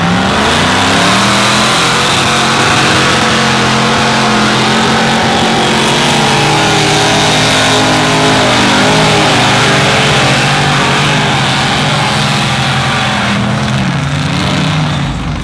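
Large off-road mud vehicle's engine running hard at high revs, its pitch rising and falling repeatedly as the throttle works. The engine sound stops abruptly at the end.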